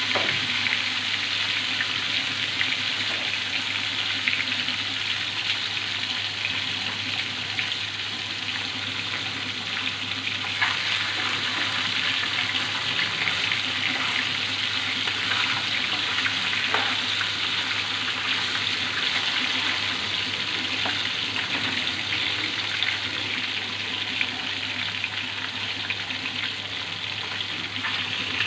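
Rohu fish steaks sizzling steadily as they fry in hot oil in a pan, with a few short clicks along the way.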